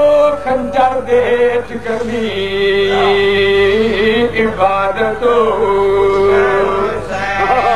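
A man chanting an elegy in a melodic, drawn-out style, as a zakir does in sung recitation. Ornamented phrases run through two long held notes, one about two seconds in and one about five seconds in.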